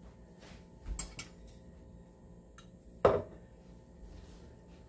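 Quiet kitchen handling noise as a fork is fetched: a few light clicks about a second in, then one sharper clack of metal cutlery at about three seconds.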